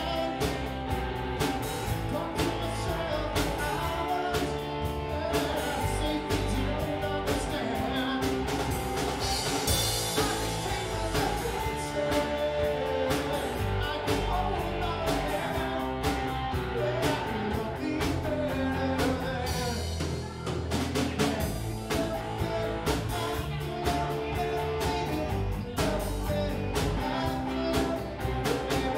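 Rock band playing live, with guitar over a steady drum kit beat and a cymbal crash about ten seconds in.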